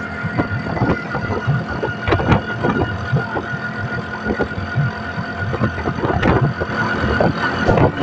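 Auto rickshaw riding along a road: its small engine runs steadily while the body gives off frequent irregular knocks and rattles.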